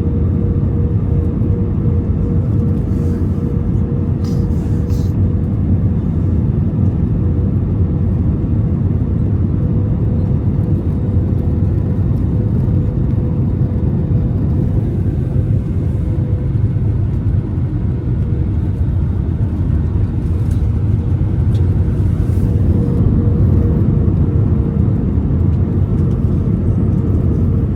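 Airbus A320 cabin noise: a steady low rumble of the engines and rushing air, with a steady hum over it and a few faint rattles.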